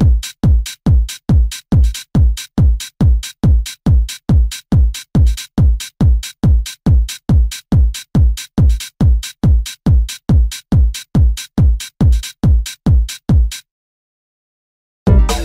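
Electronic dance track in a breakdown: a lone drum-machine kick drum pounds steadily, about three beats a second, each beat sliding down in pitch. The kick stops for about a second and a half of silence near the end, and then the full track crashes back in.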